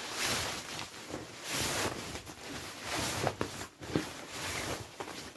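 OEX Leviathan down sleeping bag's nylon shell rustling in uneven bursts as it is stuffed by hand into its stuff sack.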